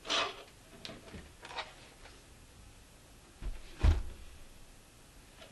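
Handling noises as a closed laptop is moved off a wooden desk: a short scrape at the start, a few light knocks, then two dull thumps about three and a half seconds in, the second the loudest.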